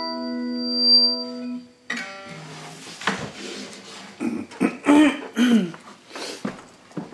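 An acoustic guitar's last chord rings on and dies out about two seconds in. Irregular knocks, rustles and brief string sounds follow as the guitar is moved and the recording is handled.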